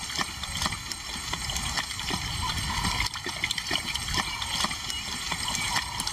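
Lions lapping water as they drink, a quick, uneven run of short wet laps.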